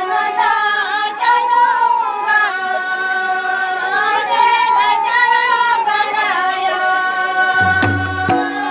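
Women singing a Santali folk song, a long, wavering melody held without drums; a low tone comes in near the end.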